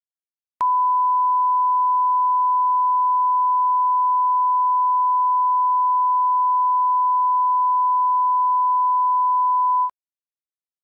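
Emergency alert attention tone: a single steady pure tone near 1 kHz, held for about nine seconds. It starts sharply just after the beginning and cuts off cleanly near the end, signalling that an emergency alert message follows.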